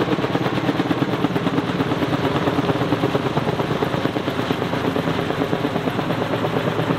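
Kaman K-MAX heavy-lift helicopter in flight with a slung load, its intermeshing twin rotors making a loud, fast, steady chop.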